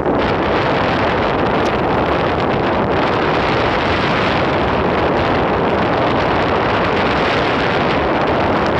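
Loud, steady wind noise rushing over a phone's microphone, from riding along at speed on an electric skateboard.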